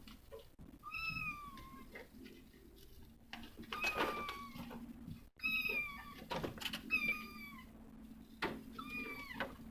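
Cats mewing: about five short, high-pitched mews spaced a second or two apart, each dipping slightly in pitch, with a few soft knocks between them.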